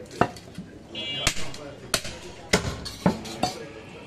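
A large butcher's knife chopping goat meat on a round wooden log block: about six sharp chops, roughly half a second apart.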